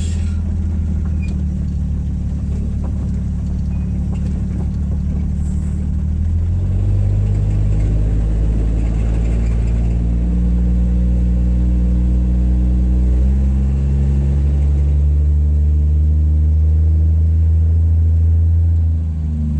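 1962 Rambler Classic's inline-six engine and exhaust running as the car is driven. The engine note rises and gets louder about six seconds in, changes pitch again around thirteen seconds, and eases off just before the end.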